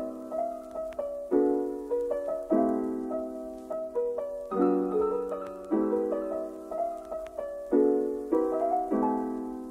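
Background music: soft piano chords struck about once a second, each ringing out and fading, in a gently repeating pattern.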